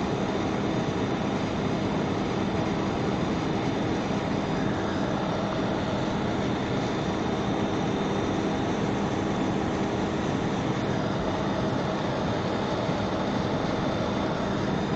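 Hot-air rework gun blowing a steady rush of air with a low hum underneath, held on a surface-mount resistor to reflow its solder pads.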